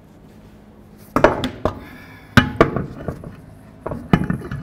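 Heavy steel dually wheel knocking and clanking against the hub and wheel studs as it is lifted and fitted onto the hub: about a second in, a series of irregular metallic knocks, several of them in close pairs.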